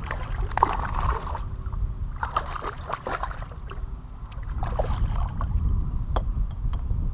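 Steady low wind rumble on the microphone aboard a kayak, with three short bursts of louder, hissier noise and a few faint clicks near the end.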